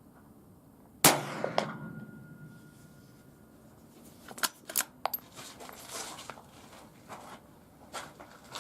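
A single .22 Long Rifle shot from a Ruger Precision Rifle firing supersonic 40-grain round-nose ammunition, about a second in, with a short ringing tail. A few lighter clicks follow a few seconds later.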